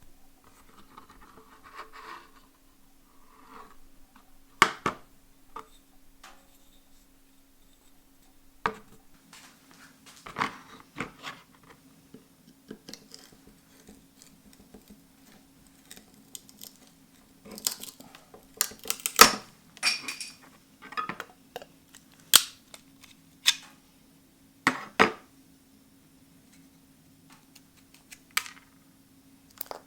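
Metal hand tools and parts being handled on a workbench: scattered clinks, taps and knocks, coming quickly for a stretch past the middle, over a faint steady low hum.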